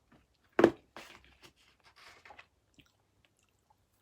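A person chewing pizza crust: a loud crunch about half a second in, then a second or two of crunchy chewing that dies away.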